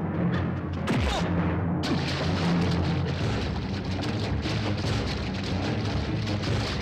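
Dramatic film background music with a heavy boom-like hit about a second in, then a body crashing into a swimming pool and water splashing heavily over the music.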